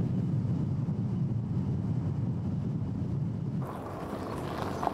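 Steady low rumble of a vehicle driving along a highway, road and engine noise. About three and a half seconds in it gives way to a lighter, hissier outdoor ambience.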